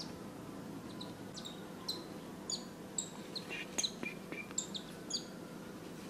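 Cockatiels chirping: a scattering of short, high, falling chirps starting about a second in, some coming in quick pairs.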